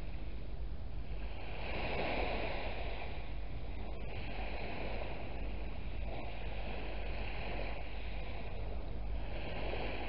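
Small waves breaking and washing up a shingle beach, swelling and ebbing every few seconds, over a steady low rumble of wind on the microphone.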